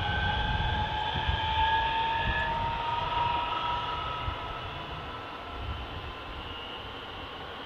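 Bombardier Regina X52 electric multiple unit pulling away: its electric traction motors whine, rising slowly in pitch as it accelerates, over a low rumble of wheels on the track. The whine fades out about halfway through and the rumble grows fainter as the train moves off.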